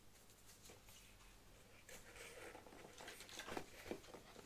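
Faint rustling and light taps of cardboard packaging being handled, busier from about two seconds in.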